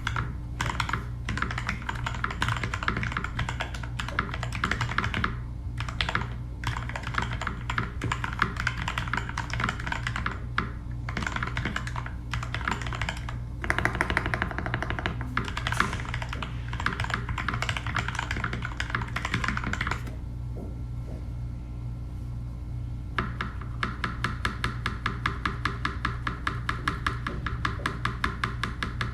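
Typing on a GK61XS 60% mechanical keyboard fitted with lubed KS-3 Gateron Yellow linear switches and DSA keycaps: a steady run of clacky keystrokes. A short lull comes past the middle, then a fast, even string of keypresses near the end.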